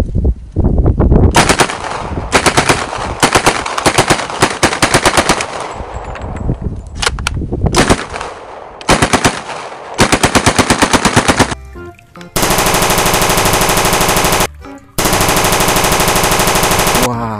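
A submachine gun firing several full-auto bursts at about eight shots a second, with some short strings and single shots among them. After that, a steady, even electronic machine-gun sound effect plays twice, about two seconds each time.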